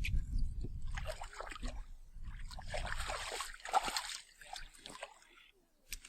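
Irregular splashing and sloshing of water, after a low rumble at the start, dying away shortly before the end.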